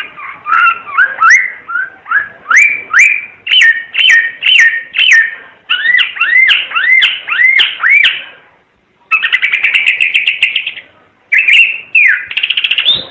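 Timor figbird singing a rapid run of short whistled notes, each slurring up or down. After a short pause it breaks into a fast rattling chatter, then goes back to whistles and a quick stutter near the end.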